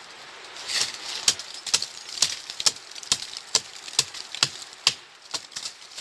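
Machete chopping into a tree trunk, hacking off bark in quick, even strokes, about two sharp strikes a second, starting just under a second in.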